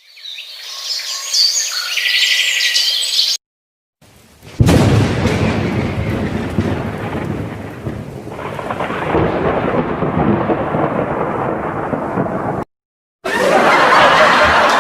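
Separate sound-effect clips cut one after another. First comes a short bright effect. After a brief gap, a thunder crack sets off a rumble that lasts several seconds. After another gap comes a steady hiss like rain.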